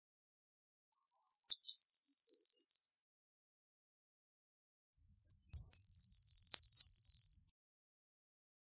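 Eurasian blue tit singing two song phrases, about a second in and again about five seconds in. Each phrase is a few high, thin notes followed by a fast trill of repeated lower notes.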